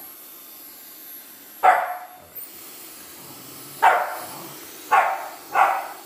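A dog barking four times: single sharp barks, the first about two seconds in and the rest coming faster toward the end. Under them is the steady whoosh and faint high whine of a Dyson Supersonic Nural hair dryer running.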